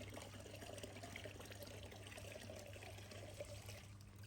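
Water pouring in a thin stream for about four seconds, stopping shortly before the end.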